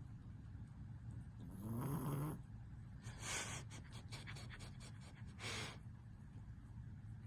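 A one-year-old pet snoring in its sleep: a snore with a low, rising pitch about two seconds in, followed by two breathy exhales about a second and about three seconds later, over a steady low hum.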